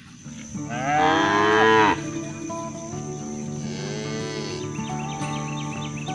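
Cattle mooing: one loud, long moo in the first two seconds, then a quieter moo about four seconds in.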